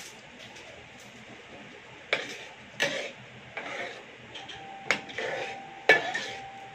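Metal spoon knocking and scraping against a frying pan as a thick sauce is stirred: five or six sharp clinks about a second apart, starting about two seconds in. A faint steady tone sounds through the last couple of seconds.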